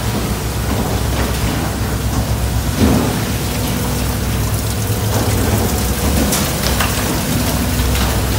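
Water spraying and running over stainless-steel processing troughs, over a steady low drone of the boat's engine and deck machinery, with a few short knocks and clanks.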